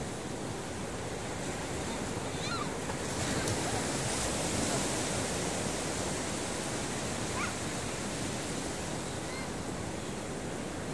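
Ocean surf washing onto a beach, a steady rush of water that swells about three seconds in as a wave breaks, then eases off. A few faint short chirps sound over it.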